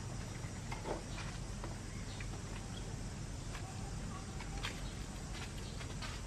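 Outdoor ambience: a steady low hum with scattered brief chirps and clicks, about one a second.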